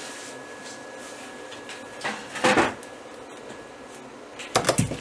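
A person moving about right next to the camera after getting up from his seat: clothing rustles and a few knocks, one burst about halfway through and another cluster near the end. Beneath them is a steady faint room hum with a thin high whine.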